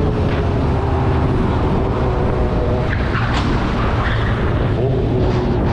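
Steady wind buffeting on the microphone of a moving motorcycle, with the bike's engine running underneath as a faint steady tone.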